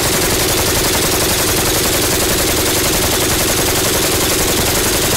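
Kalashnikov RPK light machine gun firing one long unbroken automatic burst, about ten shots a second. The gun is overheated, some 700 rounds into continuous firing, with smoke pouring off it and its wooden parts burning.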